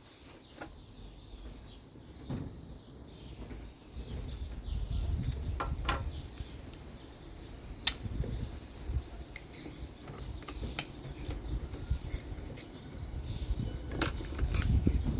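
Scattered small metallic clicks and taps of screws and carburettor parts being handled and tried for fit, over a low rumble.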